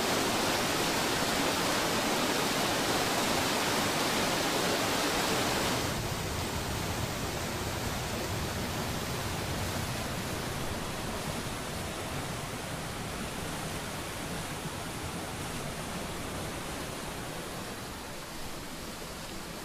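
Stream water rushing over rocks and falls in a steep rocky gorge, a steady hiss of white water. About six seconds in it drops a little quieter and less hissy, then carries on steadily.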